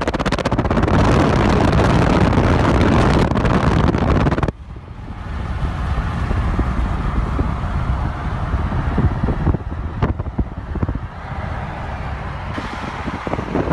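Car driving at highway speed: steady road and tyre rumble with wind rushing over the microphone. The noise drops suddenly about four and a half seconds in to a quieter, steady road rumble.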